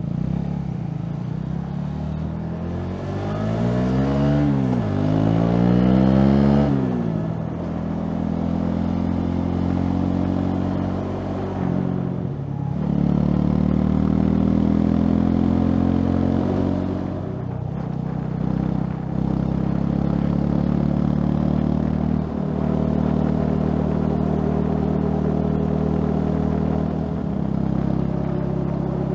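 Honda CB150R's single-cylinder engine accelerating under way, its pitch climbing for a few seconds and then dropping at an upshift. After that it runs at a fairly steady cruising pitch with a couple of brief dips in revs.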